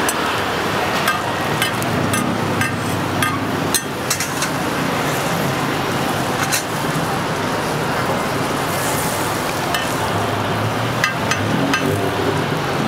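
Roti frying in oil on a flat round griddle, sizzling steadily, with irregular sharp clicks and taps of a metal spatula against the pan. Road traffic runs underneath.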